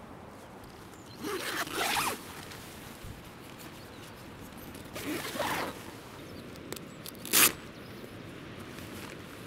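Nylon shell of an Outdoor Research hoop bivvy being handled as it is packed down, with a pole drawn out of its sleeve. There are three short swishing bursts: about a second in, about five seconds in, and a sharper, louder one near the end.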